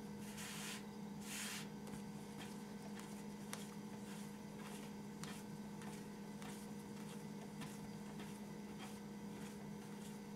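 Hands kneading a ball of yeast bread dough on a wooden tabletop: faint soft pressing and squishing, with two brief rustles near the start, over a steady low hum.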